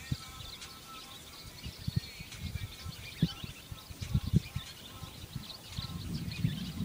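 Many high-pitched chirps of night wildlife going on continuously, with several dull low thumps close by, the loudest a quick cluster about four seconds in.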